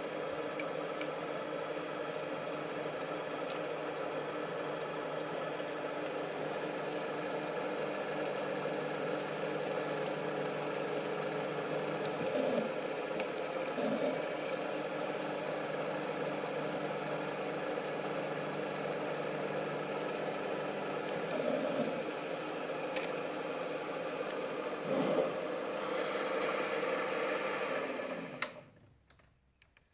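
Mini lathe running steadily with a motor-and-gear whine while drilling 2.5 mm holes in a metal part, with a few brief swells in the sound. Near the end the lathe stops, winding down quickly.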